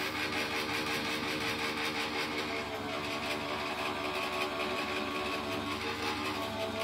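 Electric die-cutting machine running steadily with a constant motor hum, rolling the cutting plates and a stitched slimline metal die through cardstock.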